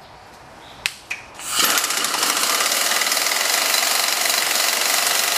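Air impact gun hammering steadily, starting about a second and a half in. It is driving a puller that draws the inner sleeve of a worn front control arm bushing off a BMW E46's control arm. A single sharp click comes just before it starts.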